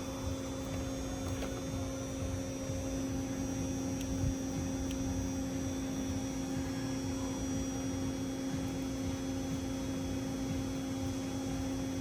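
Steady electrical hum holding one constant tone with a fainter overtone, unchanged throughout, from the car audio test setup while the head unit's bass output is checked for distortion.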